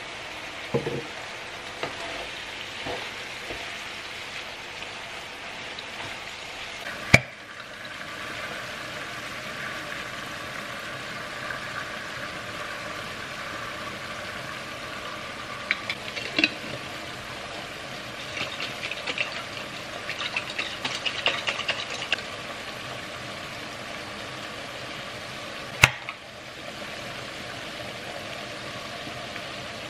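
Minced meat and onions sizzling steadily in a frying pan, with a wooden spoon stirring and scraping through the middle of the stretch. Two sharp clicks, the loudest sounds, come about seven seconds in and near the end.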